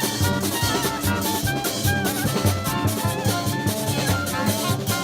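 Live street band music: drums keeping a steady beat under a melody.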